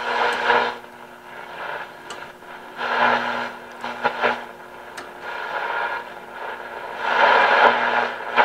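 1930 Philco Model 20 tuned-radio-frequency tube radio playing through its speaker while it is being tuned, giving bursts of static and noise that swell and fade over a steady low hum.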